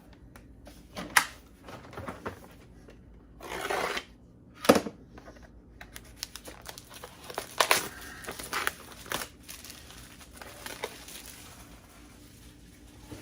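Packaging being opened by hand: irregular crinkling and a tearing rip about three and a half seconds in, with scattered sharp clicks and knocks as the contents are handled.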